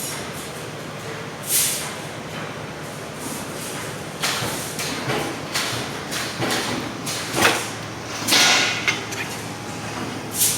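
Machinery running in a metalworking shop: a steady hum with intermittent hisses and metallic knocks, the longest hiss near the end.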